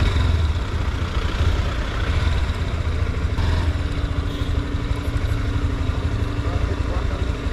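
Motorcycle engine running slowly in stop-and-go traffic: a steady low engine rumble, with a steady hum joining about three and a half seconds in.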